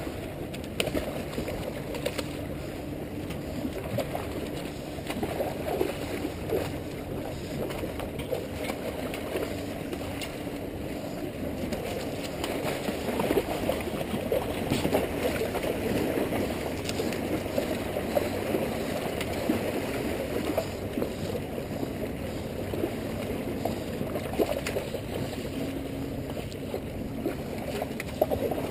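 Small waves washing and sloshing against jetty rocks, an irregular splashing that goes on without a break.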